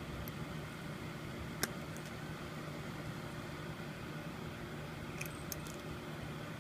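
A steady low mechanical hum over a hiss, like a small motor or fan running. One sharp click about a second and a half in, and a few faint ticks near the end.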